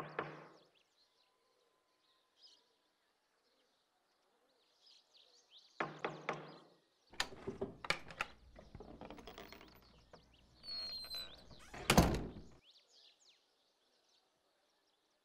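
A quick series of knocks on a wooden door, repeated about six seconds in, then the door scraping and squeaking open and shutting with a loud thunk about twelve seconds in. Birds chirp faintly throughout.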